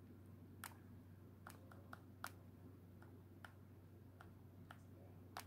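Faint, irregular taps of a stylus on the touchscreen of a Compaq iPaq H3835 Pocket PC, about nine in all, as it types on the on-screen keyboard. A low steady hum sits under them.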